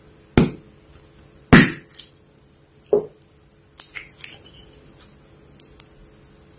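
Slime being squished and played with, giving three sharp pops in the first three seconds, the second the loudest, then a few quieter crackles.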